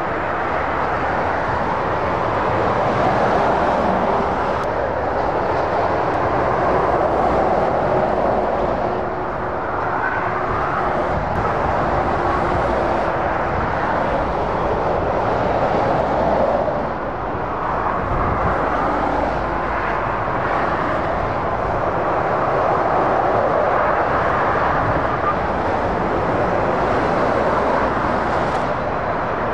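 Busy motorway traffic: heavy lorries and cars passing, a continuous rush of tyre noise and truck diesel engines that swells and eases as each vehicle goes by.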